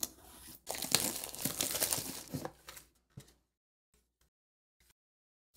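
Tear strip being pulled along a cardboard product box, a ripping sound lasting about two seconds, followed by a few light taps of the packaging being handled.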